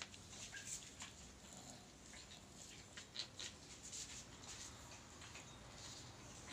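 Faint rustling and scuffling of cats shifting on a towel, with scattered soft clicks and a small cluster of them about three seconds in.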